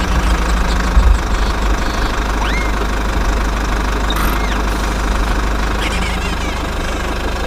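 Engine running steadily with a low, knocking rumble, with two brief high chirps about two and a half and four seconds in.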